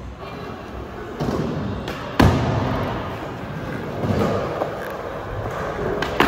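Skateboard wheels rolling over a smooth skatepark surface, with one sharp clack of the board striking the ground about two seconds in and a lighter knock near the end.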